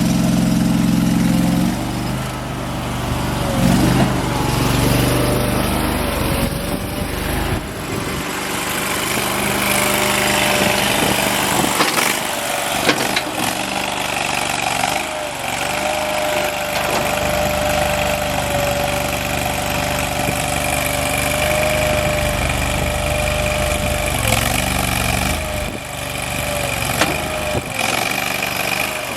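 AGT CRT-23 mini skid steer's engine running, its note changing several times, with a steady whine through much of it.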